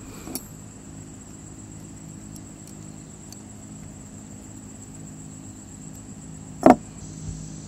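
Steady high-pitched cricket chirring over a low steady hum, broken about two-thirds of the way in by one sharp click as a folding hex key meets the rifle bolt to lock the igniter tip.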